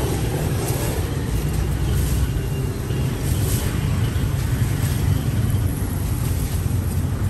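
Road traffic: a steady low rumble of passing vehicle engines with street noise over it.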